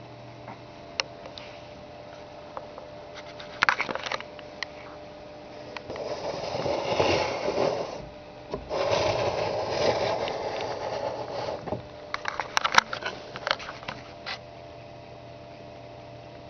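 Camera handling noise as the camera is moved about on a desk: scattered clicks, then two spells of rubbing and scraping a few seconds each, then a cluster of clicks near the end. A steady electrical hum runs underneath.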